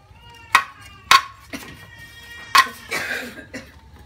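A cleaver chopping through a snake's body onto a stainless steel tray: four sharp chops in about two seconds, each with a short metallic ring from the tray, followed by a rougher, noisier stroke.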